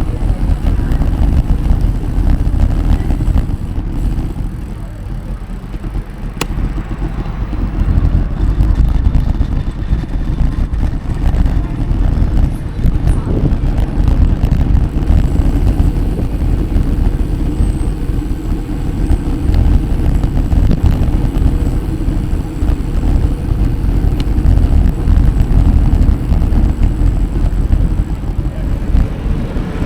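Loud, buffeting low rumble of wind on the microphone while moving, with steady background road noise.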